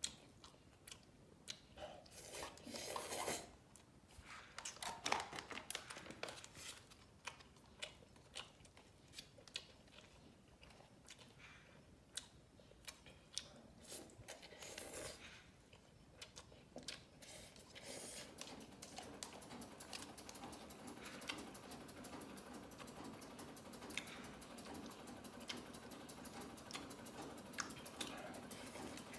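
A man eating instant noodles from a paper cup: chopsticks clicking against the cup, with short bursts of slurping and chewing. A faint steady background noise comes in about two-thirds of the way through.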